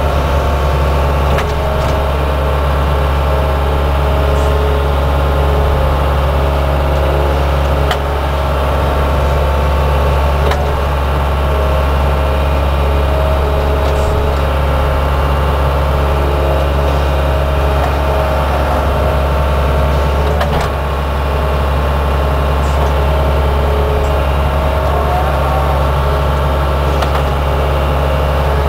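Small excavator's diesel engine running steadily, with a few short knocks from the machine as it works.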